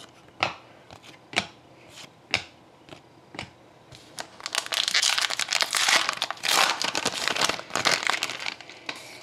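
A few sharp clicks about once a second as trading cards are flipped through, then about four seconds of loud crinkling and tearing as a card pack's wrapper is ripped open.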